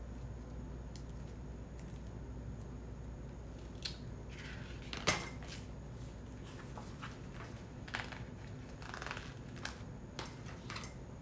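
Letter stickers being peeled off a sticker sheet and pressed onto a ruler: soft, scattered rustles and small clicks, with one sharper click about five seconds in.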